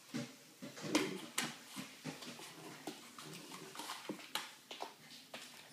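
A puppy scampering about on a hardwood floor: a scatter of quick claw taps and light knocks at an uneven pace as it plays.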